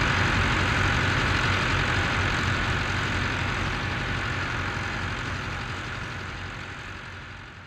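Red International tractor's engine idling steadily with a low rumble, fading out near the end.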